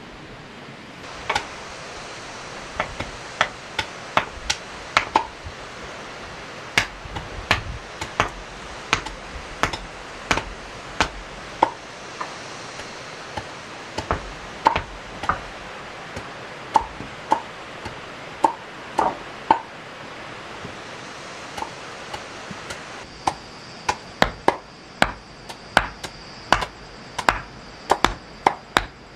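Repeated sharp strikes of a hand tool, about one or two a second and coming faster in the last few seconds, some with a brief ringing note, over a steady background hiss.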